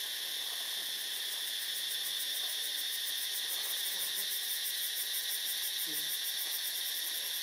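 A steady, shrill chorus of insects buzzing, with a fine fast pulsing. A brief faint low sound about six seconds in.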